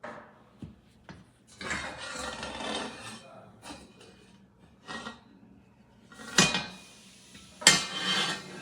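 Handling noises: scraping and rubbing, a few light clicks, and two loud sharp knocks, the second near the end followed by more scraping.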